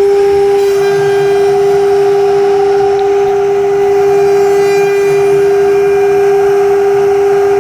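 Omni 1325 CNC router's spindle running with a steady whine while the bit cuts a grid pattern into a wooden sheet.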